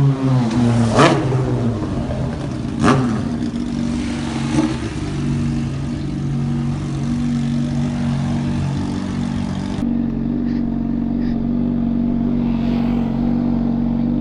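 Motorcycle engine slowing down, its pitch falling, then idling steadily. Two sharp knocks stand out about one and three seconds in.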